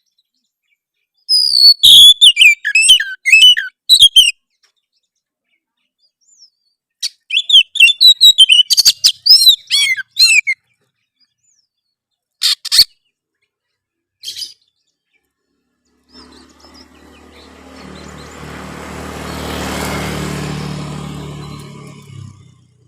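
Oriental magpie-robin (kacer) singing harsh, rapid chattering phrases in several bursts over the first ten seconds, followed by two short calls. A softer low rumbling noise then swells up and fades away over the last six seconds.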